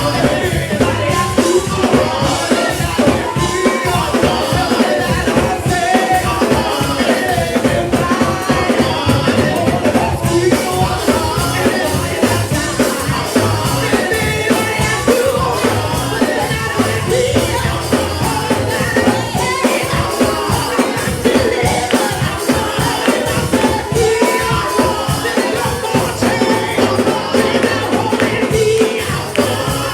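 Live gospel worship music: a band with a drum kit playing a fast beat, with voices singing over it.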